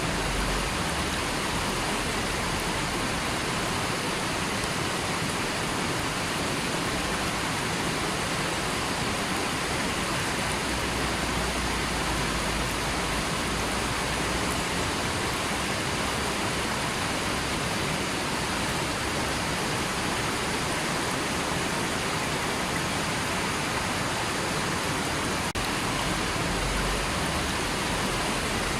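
River water rushing over rocks in a steady, unbroken stream of noise.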